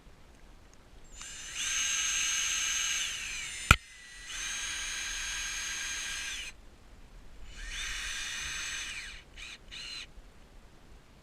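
Power drill running in three bursts of a couple of seconds each, spinning up and winding down each time, as it drives screws to fasten a solar panel mount. There is one sharp loud knock after the first burst, and a few short blips of the drill near the end.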